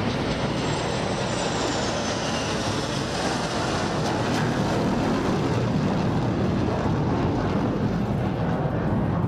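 Steady jet-engine noise from a formation of F-16 Fighting Falcon fighters flying past, with a high whine falling in pitch over the first three seconds.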